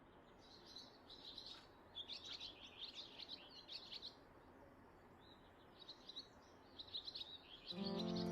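Small songbirds chirping and twittering in quick, high flurries, in two spells with a short lull between. Music comes in just before the end.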